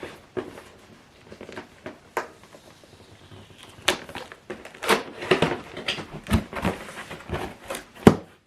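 Cardboard box and packaging being opened and handled by hand: scattered taps, knocks and rustling, busier in the second half, with a sharp knock near the end.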